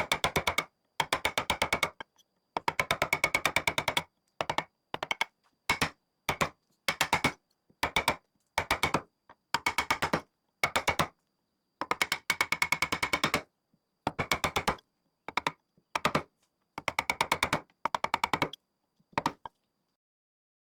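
Wood carving: rapid sharp tapping strikes on wood in short bursts, each from a fraction of a second to about a second and a half long, with sudden silences between them.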